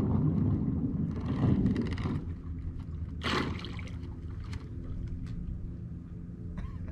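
Two electric trolling motors on a canoe's stern, one in forward and one in reverse, churning the water as they spin the canoe, with a steady low hum. A loud rush of water in the first two seconds and a short sharp splash about three seconds in.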